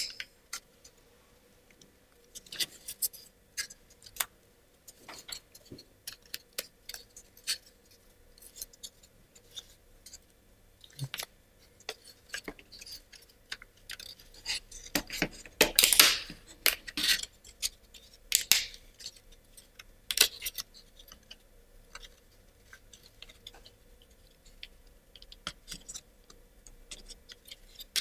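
Laser-cut plywood parts of a wooden model kit clicking and knocking against each other as they are handled and pressed together at the joints, with a louder run of knocks a little past halfway.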